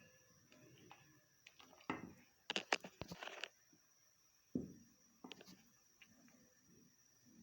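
Porridge being stirred in a pot: scattered light clicks and scrapes of the stirring utensil against the pot, with a quick run of sharper knocks a few seconds in and a single thump a little later.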